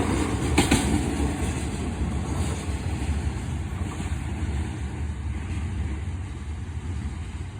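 Freight train receding past a level crossing. The clatter of its wheels over the rail joints fades within the first second into a low rumble that slowly dies away.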